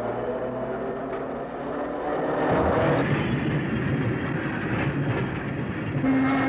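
Pacific Electric Red Car interurban electric railcar running on rails, a steady rumble of wheels and motors that grows louder about two seconds in. A steady hum-like tone comes in near the end.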